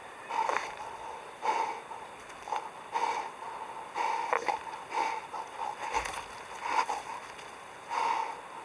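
Wild boar snorting and huffing in short breathy bursts, about one a second.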